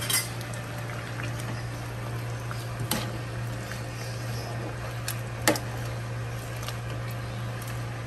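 Metal ladle stirring chunks of pork in a simmering liquid in an aluminium pan, clinking sharply against the pan a few times, loudest about five and a half seconds in. Under it, a liquid simmer and a steady low hum.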